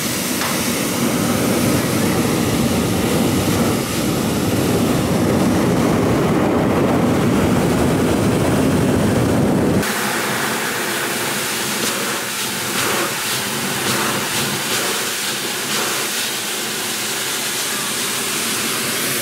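Hot-air balloon propane burner firing close by, a loud steady rush that breaks off suddenly about ten seconds in. After that a quieter, steady rushing sound continues with scattered knocks and clicks.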